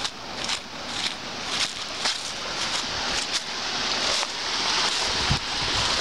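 Footsteps crunching through dry fallen leaves and dead grass at a walking pace, about two steps a second, with a steadier rustle of leaves and twigs building in the second half.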